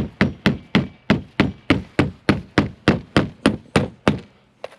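Hammer driving nails into the old roof decking: a fast, even run of blows, about four a second, that stops about four seconds in, followed by one lighter tap.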